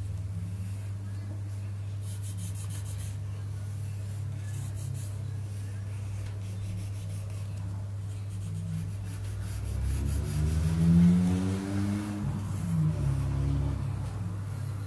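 Pencil lead scratching in short strokes on drawing paper over a steady low hum. About ten seconds in, a passing engine swells and fades away and is the loudest sound.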